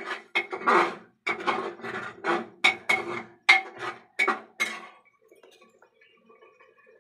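Metal spatula scraping and stirring thick curry masala in an aluminium pot, in quick strokes about twice a second, stopping about five seconds in. A faint steady hum remains after the stirring stops.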